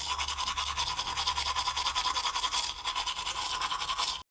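Rapid, even scrubbing or scratching strokes, about ten a second, much like brushing. They cut off suddenly near the end.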